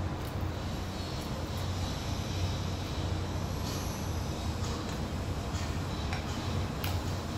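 A steady low background hum, with a few faint clicks and scrapes of a spoon against a non-stick frying pan as food is picked up and pushed around.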